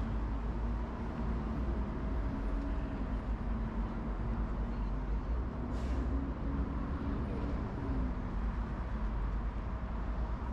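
Steady traffic on a busy multi-lane city road: a continuous rumble of engines and tyres. A short sharp hiss comes about six seconds in.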